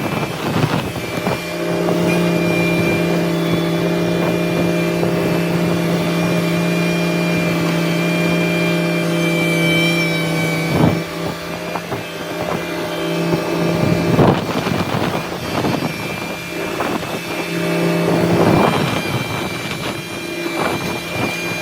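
Front-loader tractor engine running at a steady speed while clearing snow with its bucket, with a few short knocks and scrapes.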